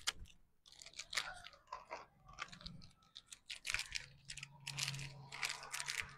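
Irregular close-up crunching and chewing, as of something crunchy being bitten and eaten, with a low steady hum joining in about halfway through.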